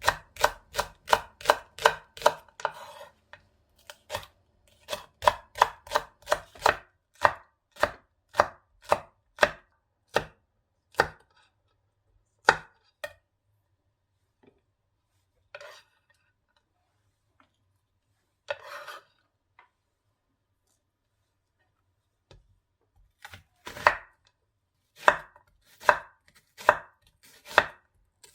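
Kitchen knife chopping food on a cutting board in runs of quick, even strokes, about three or four a second, with a long pause midway before the chopping starts again.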